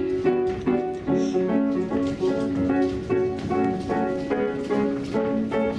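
Instrumental music: a steady run of plucked or struck pitched notes over sustained chords, a couple of new notes each second.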